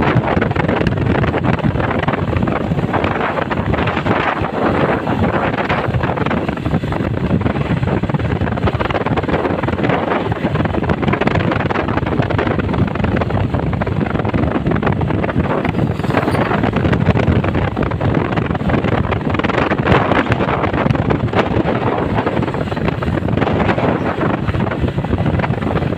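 Wind buffeting hard on the microphone over the steady noise of moving vehicles on a road; no bus horn sounds.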